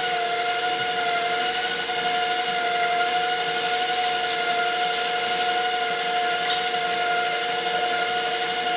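Electric stand mixer running steadily at a raised speed with a constant whine, beating butter, powdered sugar and milk into frosting.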